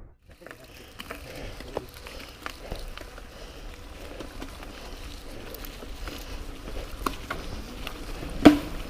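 Mountain bike rolling on a dirt trail: tyres crunching with scattered clicks and rattles from the bike, and a sharper knock near the end.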